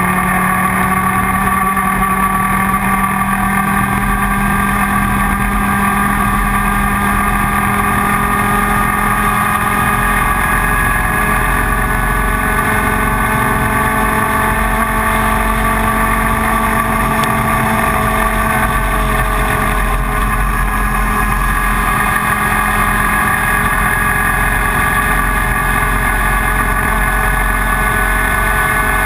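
Stock Leopard kart's IAME Leopard 125cc two-stroke engine running at a nearly steady pitch, with only slow, slight drifts up and down.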